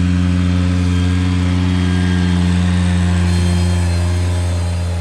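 Ventrac 4500Z compact tractor's engine running at a steady speed, its drone holding one pitch and easing off slightly near the end.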